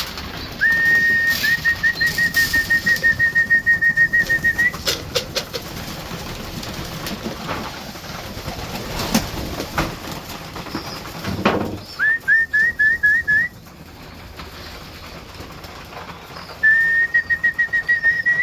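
A fluttering whistle held on one high pitch, pulsing rapidly, sounded three times (a long call of about four seconds near the start, then two short ones later): a feeding call to racing pigeons. Pigeons coo underneath, with scattered light taps and clicks.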